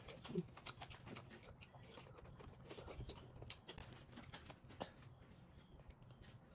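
Faint eating sounds: crisp green-leaf lettuce leaves being torn and handled, with chewing, as a scatter of short crackles and clicks.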